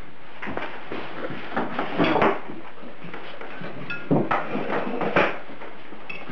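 Cutlery and china plates knocking and clinking on a table as food is cut and served, a scatter of short sharp knocks with the odd ringing clink of a plate.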